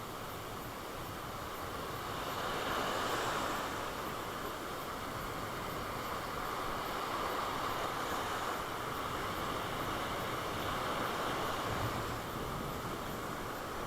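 Sea surf washing onto a beach: a steady rushing hiss that swells and eases, louder about three seconds in and again in the middle.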